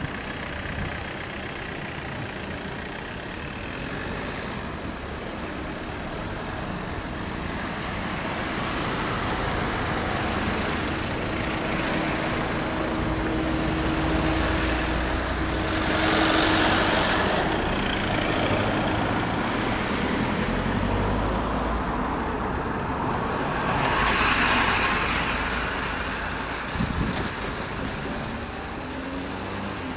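Road traffic over a railway level crossing: cars and vans driving past one after another, loudest as vehicles go by about 16 and 24 seconds in, with a short knock near the end.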